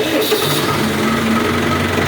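Massey Ferguson 265 tractor's three-cylinder diesel engine starting: it catches suddenly and settles straight into a loud, steady run.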